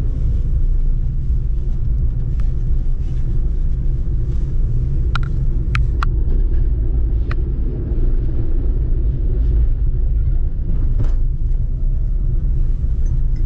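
A car driving, heard from inside the cabin: a steady low rumble of road and engine noise, with a few short clicks or knocks around the middle.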